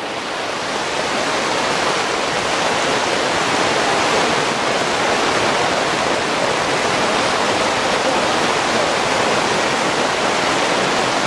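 Heavy rain pouring onto a gazebo's canopy roof overhead, a loud, steady, dense hiss that swells a little in the first couple of seconds.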